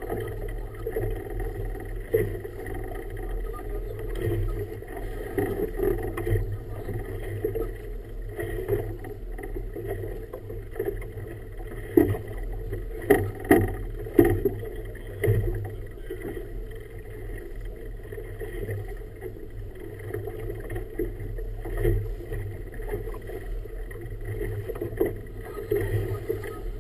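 Choppy river water sloshing against a boat's hull right beside the microphone, with several sharp slaps of waves against the hull about halfway through, over a steady low hum.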